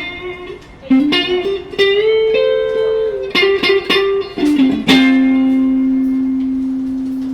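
PRS 408 electric guitar playing a single-note lead phrase, with one note pushed up in pitch and let back down. It ends on one long note left to ring and slowly fade.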